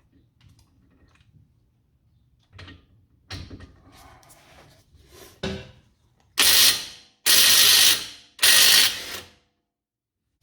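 Impact wrench run in three short bursts, each under a second, loosening the 21 mm front brake caliper bolts. Quieter clicks and knocks of the socket being fitted onto the bolt come before the bursts.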